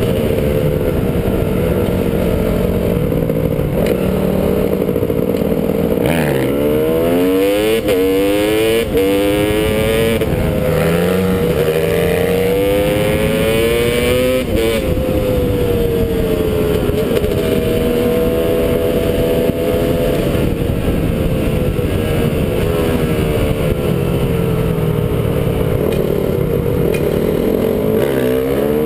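Dirt bike engine under hard acceleration, its pitch climbing through each gear and dropping back at every upshift, several times over, with wind rushing over the microphone at riding speed.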